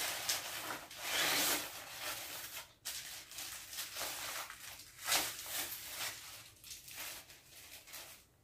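Plastic wrapping crinkling and rustling in irregular bursts as a bundle of tent poles is unwrapped and pulled free.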